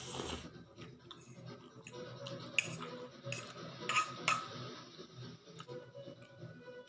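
Cutlery clinking against a dish while eating noodles: a few sharp clinks in the middle of the stretch, over a low steady background.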